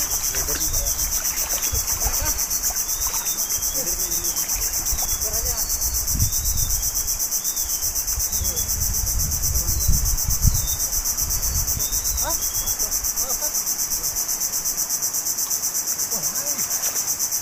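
Insects buzzing in a dense, high-pitched chorus that pulses rapidly and evenly without letting up. A low rumble comes in around the middle.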